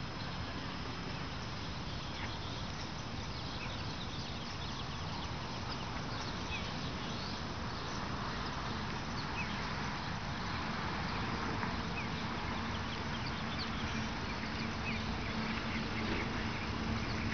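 Outdoor park background: a steady hiss of ambient noise with scattered short, high bird chirps, growing a little louder toward the end, where a faint low hum comes in.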